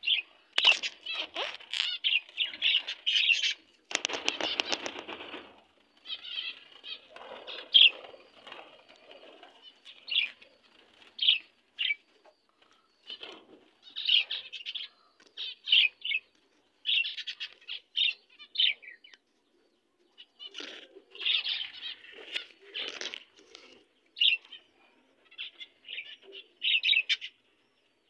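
Caged lovebirds chirping in many short, sharp calls, with a burst of wing flapping about four seconds in.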